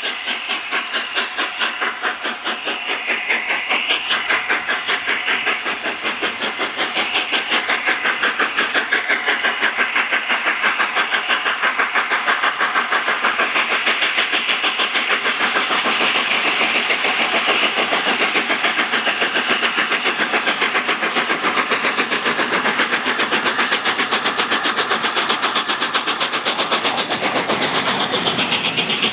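Steam locomotive working a passenger train past at close range, its exhaust beats in a fast, even rhythm over the run of the wheels and coaches, growing louder over the first several seconds as it approaches.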